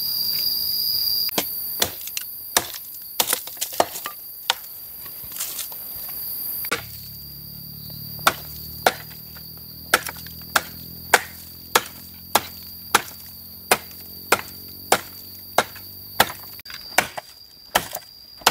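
Dry firewood being chopped into lengths: repeated chopping blows on wood, scattered at first, then coming steadily about every two-thirds of a second in the second half. Insects call steadily in the background.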